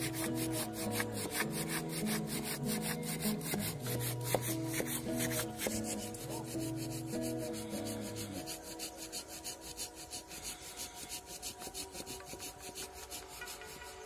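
Hand saw cutting through a dead log in quick rasping strokes, about four a second, with background music whose low notes drop out about eight seconds in.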